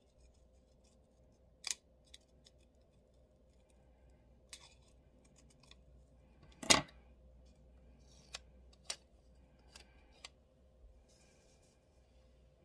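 Paper stickers being handled and set down on a planner page: scattered light clicks and paper ticks, with one sharper tap about halfway through.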